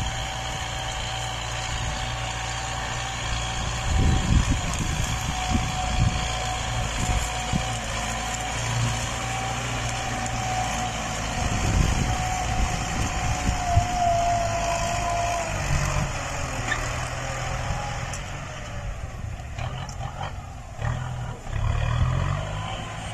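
Tractor engine running steadily under load as it pulls a disc harrow through dry soil. The engine note carries a whine that dips slightly in pitch about two thirds of the way through, with irregular low thumps.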